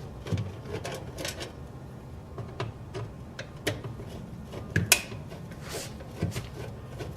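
Scattered light clicks and knocks of the thermostat cover plate on a True GDM-10 drink cooler being worked loose by hand, with one sharper click about five seconds in.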